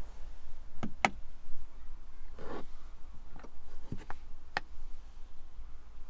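Several light clicks and taps and a short rustle about halfway through: handling noise inside a car's cabin, over a steady low rumble.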